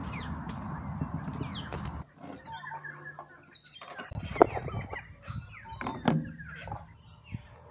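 Outdoor birds calling and chirping repeatedly. For the first two seconds they are heard over a rushing, wind-like noise; after that it is quieter, with a few sharp clicks about four and six seconds in.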